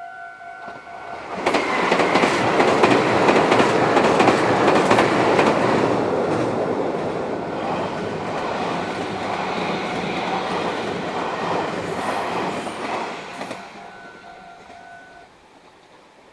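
Meitetsu electric train passing at speed, its wheels clattering over rail joints. The noise builds sharply about a second in and fades away near the end, with a steady high tone heard just before it arrives and again as it dies away.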